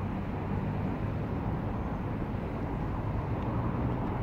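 Steady rumble of road traffic on a busy road, a continuous low noise with no separate events standing out.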